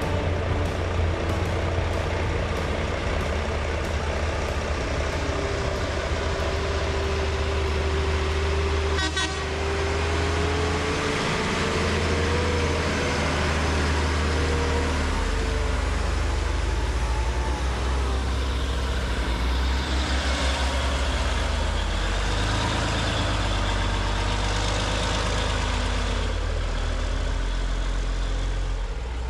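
Diesel engines of heavy earthmoving equipment running steadily during dirt loading and hauling. A held tone rises slightly in pitch for a few seconds about a third of the way in.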